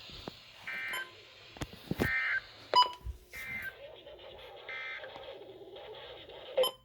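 Emergency Alert System end-of-message data bursts: four short, buzzy digital tone bursts about a second and a third apart, closing the warning. Sharp clicks fall between them, the loudest a little under three seconds in.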